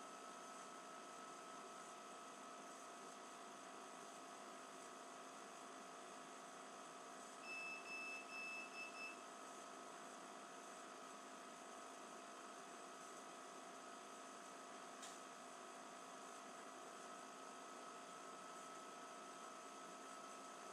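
Faint steady electrical hum, broken about seven and a half seconds in by a quick run of about five short high-pitched beeps from the HINO DVR's buzzer, its audible warning.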